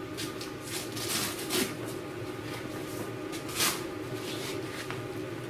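Rustling and handling of a fabric ATV rack bag, with several short scraping sounds, the loudest about three and a half seconds in, and a light tick near the end.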